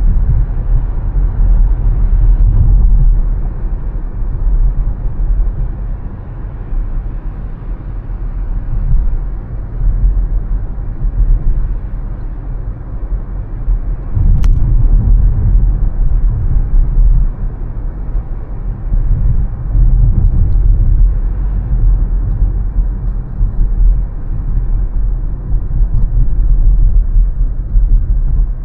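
Low rumble of a car driving, its level swelling and easing every few seconds, with a single sharp click about fourteen seconds in.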